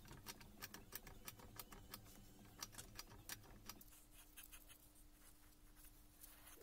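Faint, quick clicks and light metallic taps as the armature of a Hilti TE 500 breaker is worked out of its housing, several a second at first and fewer after about four seconds, over a faint steady hum.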